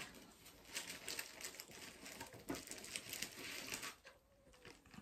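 Faint rustling and crinkling with scattered light taps and clicks, as craft items are rummaged through and handled.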